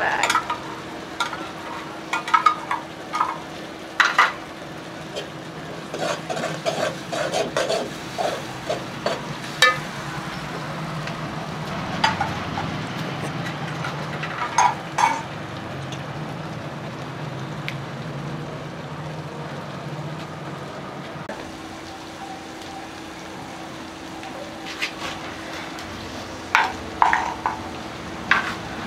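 Masala frying and sizzling steadily in a metal pot, with a spoon scraping and knocking against the pot's sides now and then as it is stirred.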